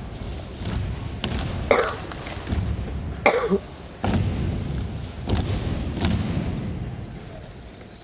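A karate team performing a kata in unison: a series of sharp snaps and thuds from gi sleeves and bare feet stamping on the mat with each technique, with two short, loud shouts (kiai), one a couple of seconds in and another about a second and a half later.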